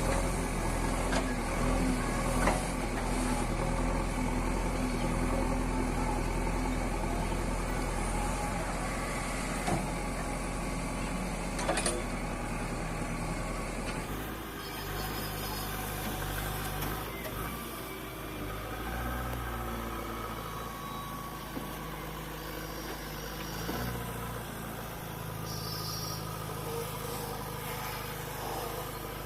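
Diesel engine of a JCB 3DX backhoe loader running steadily, with a few short knocks. The engine note shifts about halfway through.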